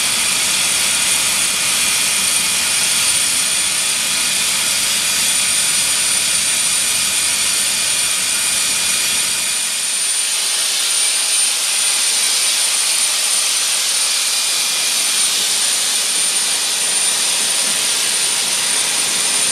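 Jet aircraft turbine whine on an airport apron: a steady hiss with a high, even tone. About halfway through the low rumble drops away and the whine goes on as heard from inside the cabin.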